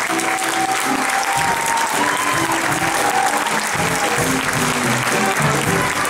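Theatre audience applauding, with some voices calling out in cheers, over the show's accompaniment music.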